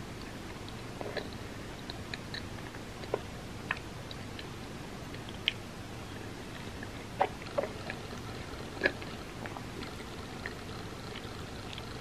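Close-miked wet mouth sounds of chewing a soft mouthful of mochi ice cream and red bean porridge with the mouth closed: scattered small smacks and clicks over a steady hiss, the loudest few clustered about seven to nine seconds in.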